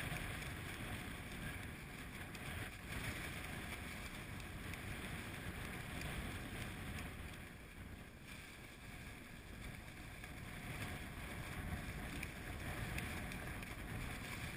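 Steady wind and water noise aboard an inflatable boat on open water, with wind buffeting the microphone.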